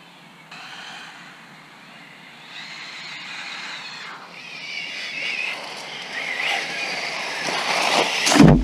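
Arrma Typhon TLR 1/8-scale electric RC buggy driving toward the camera: its brushless motor whines, rising and falling in pitch with the throttle, over tyre noise, growing steadily louder as it approaches. A loud thump comes just before the end.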